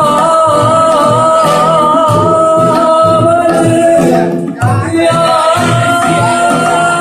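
Male singer holding a long, wavering sung note, breaking briefly about four and a half seconds in, then holding a second, steadier note. Acoustic guitar and a regular low beat accompany him in a live band performance.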